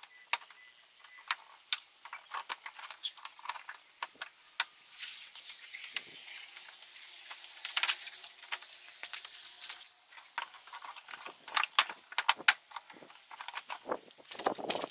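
Plastic front bumper cover of a Subaru Crosstrek being pushed and snapped onto its clips: scattered clicks, taps and light plastic rattles, with a few louder clusters of clicks.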